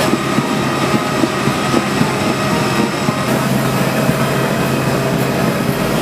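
Airbus A320 jet engines running steadily: an even rush with a thin steady whine over a low hum.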